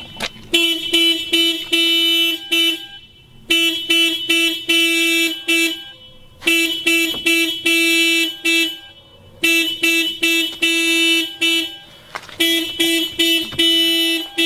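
1999 Toyota Corolla's car alarm going off, sounding the horn in quick repeated honks, about three a second, in bursts of about two and a half seconds with short pauses between.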